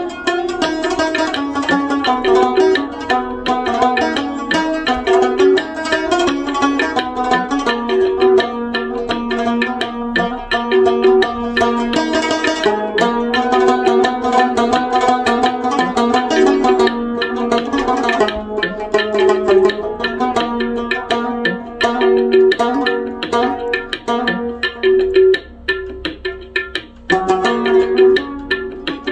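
Background instrumental music with a steady percussion beat and a repeating melody.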